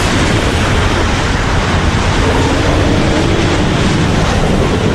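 Loud, steady rushing wind of a tornado, with a deep low rumble beneath it.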